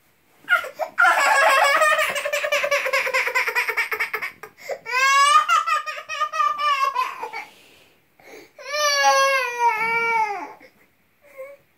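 Baby's loud, high-pitched vocalizing in three long drawn-out calls, the first with a fast quaver and the later two sliding down in pitch at their ends.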